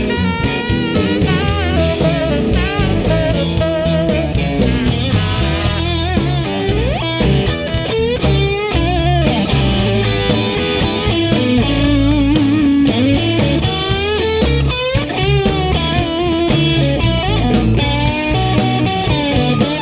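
Background music: a blues-style song with electric guitar and a drum kit, the guitar notes bending in pitch over a steady beat.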